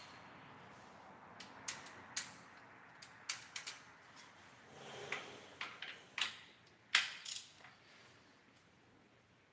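Irregular sharp metallic clicks and taps, about a dozen, from tools and valvetrain parts being handled on an engine during assembly; the loudest comes about seven seconds in.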